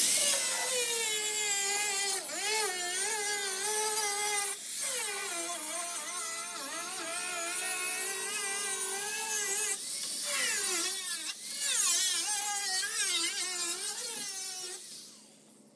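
Handheld power tool grinding on the car's body panel, a high whine whose pitch wavers up and down as it is pressed into the work over a hissing grind. It drops out briefly twice and cuts off just before the end.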